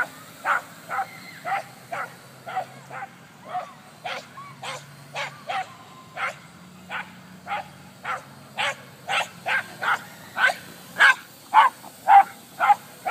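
Small terrier barking repeatedly in short, sharp barks, about two a second, with a brief pause partway through: excited chase barking at a toy drone flying overhead.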